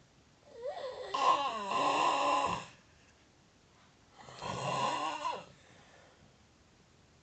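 Loud snoring: two long snores, the first about two seconds long with a wavering pitch, the second shorter, with quiet breaths between them.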